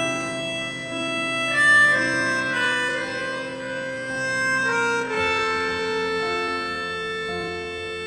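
Background music: a melody of held notes, each sustained for about a second before moving to the next.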